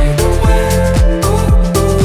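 Background music with a steady beat: a deep kick about twice a second under held chords and regular high ticks.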